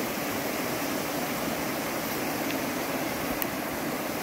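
Shallow river rushing over a rocky bed through small rapids: a steady rushing noise.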